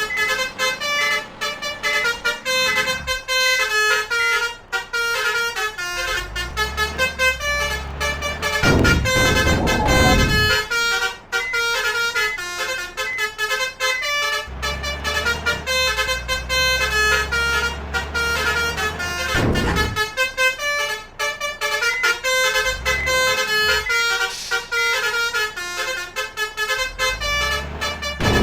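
An 'om telolet' multi-tone musical vehicle horn playing a fast tune of short notes without a break. A heavy engine rumbles underneath in two long stretches, with a loud rush of noise about a third of the way in and again about two-thirds of the way in.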